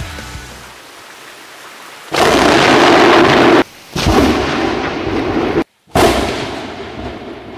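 Rain hissing, then very loud thunder from a lightning strike within about 20 metres, arriving almost together with the flash. The blast starts abruptly about two seconds in and comes in three stretches split by two short breaks, the last dying away slowly.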